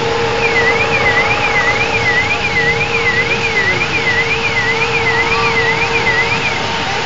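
Mil Mi-24 helicopter's twin turboshaft engines running on the ground before takeoff: a loud, steady rushing noise with a steady whine. A fainter high warbling tone rises and falls about twice a second through most of it.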